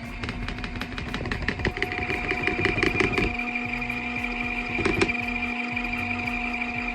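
Portable washing machine's spin-basket motor running with a steady whine. It rattles rapidly for about the first three seconds, then runs smoothly, with one knock about five seconds in.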